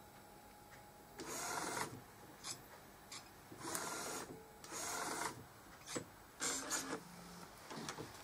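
Epson R1400 inkjet printer, converted for UV LED printing, running: four short mechanical runs of about half a second each, with single clicks between them.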